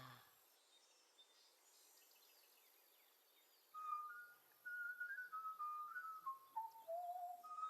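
A tune whistled in clear single notes, starting about four seconds in, stepping up and down and dipping lower near the end. Before it there is only faint background hiss.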